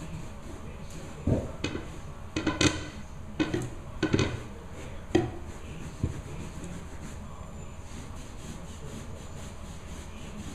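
Several knocks and rubbing scrapes as cleaning hoses and equipment are handled on the floor, clustered in the first half and then stopping about six seconds in, over a steady low hum.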